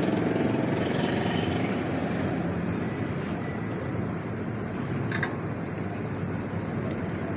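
A motor or engine running steadily, with two short clicks about five and six seconds in.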